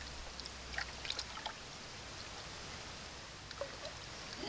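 Water swirling and lightly splashing in a metal bucket as a green monkey paddles around in circles, stirring it into a whirlpool, with a few small splashes about a second in.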